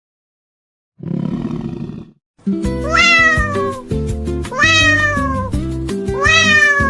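A cat meowing three times over background music with a steady beat, each meow about a second long and falling in pitch. Before the music starts there is a short burst of noise.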